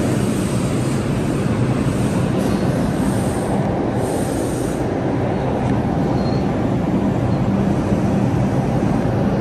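New York City Subway train in an underground station: a steady rumble of wheels and running gear with a low motor hum.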